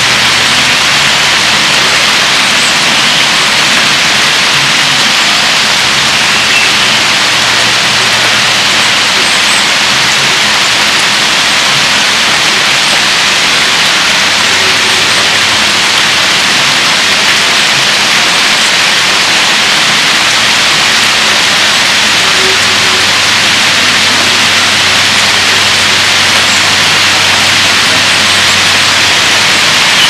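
Heavy rain pouring down, a steady, even hiss.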